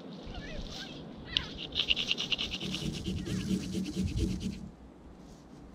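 Knife blade scraping in a bundle of dry grass tinder: a sharp click about a second in, then a quick run of scratching strokes for about three seconds that stops suddenly.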